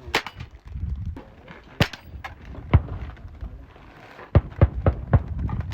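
Firearms being shot at a range: a series of sharp gunshot cracks, one just after the start, a few about half a second apart around two seconds in, then a quick run of four shots between about four and five seconds in.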